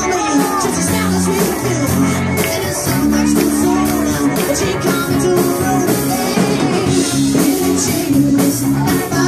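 Live cover band playing an upbeat song with a steady beat and a singer on a microphone.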